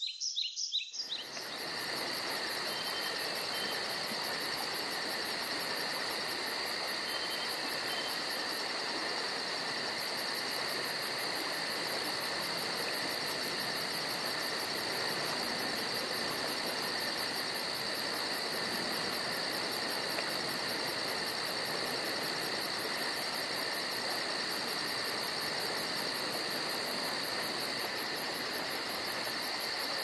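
Steady insect chorus: a fast, even trill high up over constant shrill tones, starting about a second in after a few bird chirps.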